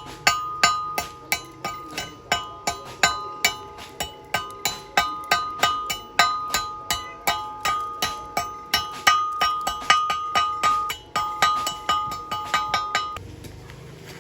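Hammer blows on steel plate, about three a second, each one ringing at a few fixed metallic pitches; the striking stops about a second before the end.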